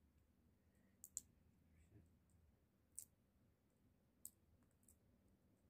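Sunflower seeds being peeled by hand: faint, sharp clicks of the shells as they are cracked and picked apart, two close together about a second in, then single clicks near three, four and five seconds in.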